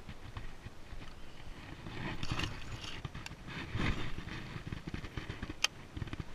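Soft rustling and light knocks from hands handling a fish, a rod and a baitcasting reel in an aluminium jon boat, with one sharp click near the end.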